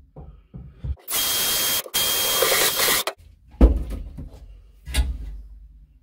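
Cordless drill with a step bit cutting a hole through the sheet-steel cab floor of a 1949 Chevy 3100 pickup: about two seconds of loud grinding, broken by a brief pause in the middle. Two sharp knocks follow, about a second and a half apart.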